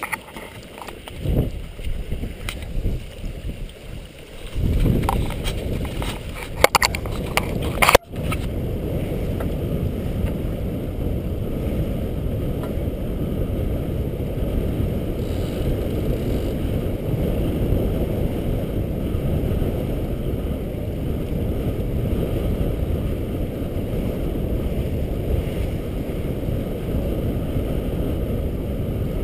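Wind buffeting the microphone and water rushing past the hull of a Hallberg-Rassy 352 sailing yacht under sail. The first part comes in irregular gusts with a few sharp clicks; from about eight seconds in it becomes a steady low rush.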